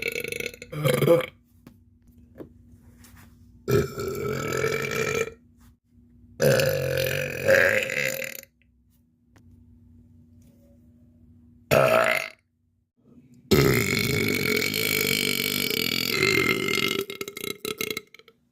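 A girl burping five times, with pauses between: two short burps and three long drawn-out ones, the last and longest running several seconds.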